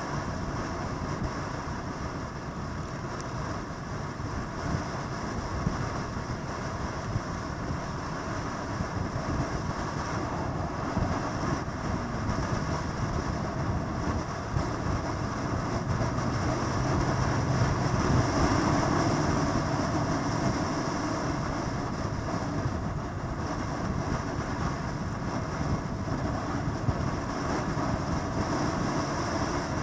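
Motorcycle engines running in a steady drone that grows louder a little past the middle, then eases off.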